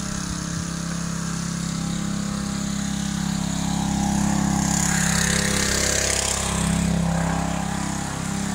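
Gas pressure washer's small engine running steadily, with a hiss swelling about halfway through.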